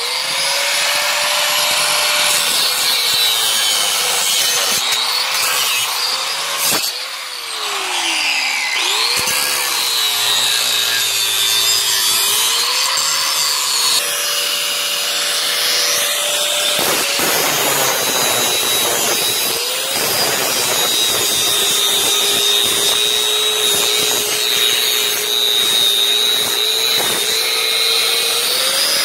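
Angle grinder running against steel exhaust pipe, its motor whine sagging and recovering again and again as the disc bites into the metal. About halfway through, the sound changes abruptly to the grinder working on the exhaust flange.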